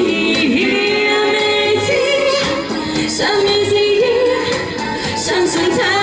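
A man and a woman singing a pop duet into handheld microphones, amplified, over a backing track, holding long wavering notes.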